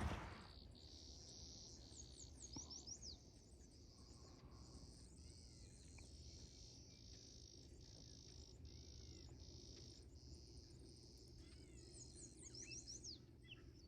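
Faint outdoor insect chirping, probably crickets or grasshoppers, in an even pulse of about three chirps every two seconds. A few quick, high, falling bird chirps come in clusters about two and a half seconds in and again near the end.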